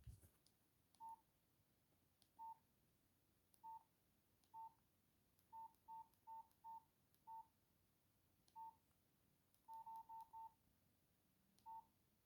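Nokia 5130 XpressMusic keypad tones: about fifteen short, faint beeps of one pitch at uneven intervals, some in quick runs, each beep a key press on the phone.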